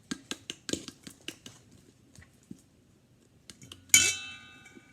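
A utensil stirring and tapping in a mixing bowl of slime: a quick run of clicks at first, then about four seconds in one sharp clink against the bowl that rings on briefly.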